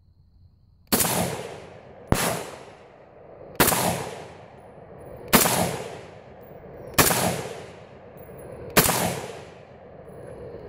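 Ruger Mini-14 semi-automatic rifle firing six shots of cast-bullet handloads at an unhurried pace, about one and a half to two seconds apart, each report ringing off before the next. The action cycles on every shot, showing these loads function the rifle.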